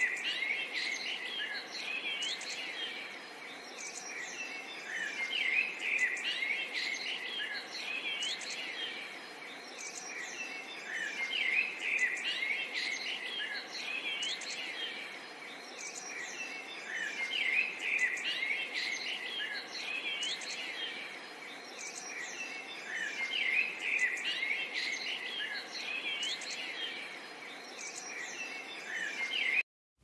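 Many small birds chirping and twittering together in a busy chorus, swelling and easing about every six seconds. It cuts off abruptly just before the end.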